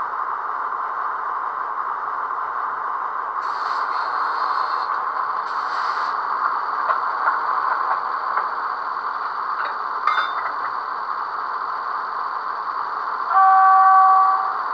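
The ZIMO sound decoder's recorded diesel engine sound in a Piko H0 BR 106 model locomotive, running steadily through the model's small speaker. Two short hisses come about four and six seconds in, and a horn blast of about a second comes near the end.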